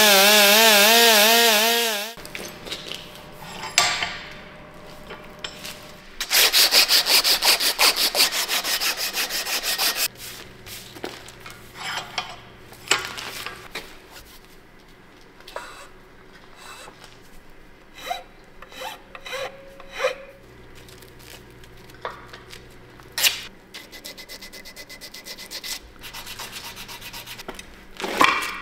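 A rotary tool with a sanding drum whines against the wooden hatchet handle, its pitch wavering under load, and cuts off about two seconds in. Then comes hand sanding of the wooden handle: rapid rhythmic rubbing strokes for about four seconds, fainter strokes later, and scattered knocks. A sharp metal snap near the end comes as the locking pliers holding the hatchet head are released.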